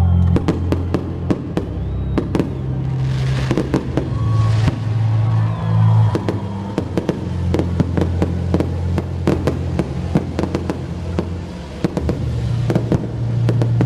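Fireworks popping and crackling in many quick, irregular reports over music with sustained low bass notes. A hissing burst about three seconds in lasts about a second and a half.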